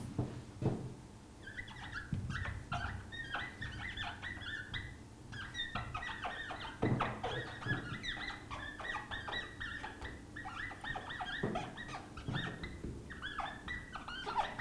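Whiteboard marker squeaking against the board in quick, short handwriting strokes, pitched and scratchy, with a few soft knocks of the marker between words.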